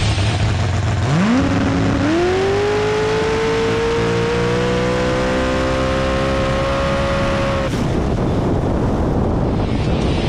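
Supercharged 4000 hp ProCharged Hemi V8 drag car making a full-throttle pass. A low rumble turns into an engine note that climbs steeply about a second in, jumps again a moment later, then keeps rising slowly for about six seconds. Near the end the note cuts off abruptly as the throttle is lifted, leaving a rushing noise.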